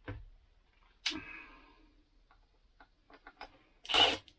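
Clicks and small ticks of screws and hand tools being handled while a cover is refitted, with one sharper click about a second in. Near the end come three short, loud noisy bursts.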